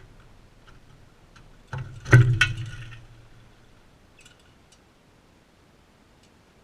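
Crimson rosella feeding right beside the camera: light ticks, then a cluster of sharp knocks about two seconds in, the loudest with a short rattle after it, fading within a second or two.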